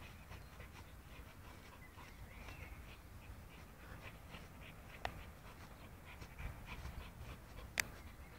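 A dog panting faintly, with two sharp clicks, one about five seconds in and one near the end.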